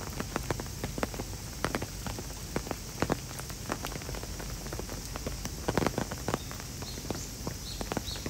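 Rain falling, with water dripping and splashing in irregular taps onto the surfaces below; a quick cluster of louder splashes comes about six seconds in.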